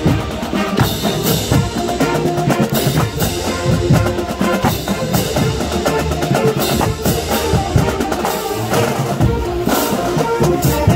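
Marching band playing loudly close by: brass over a steady beat of snare and bass drums.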